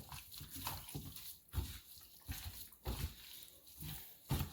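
Gloved hands mixing seasoned raw chicken pieces in a bowl: irregular wet squelches and soft knocks, the loudest about a second and a half, three seconds and four seconds in.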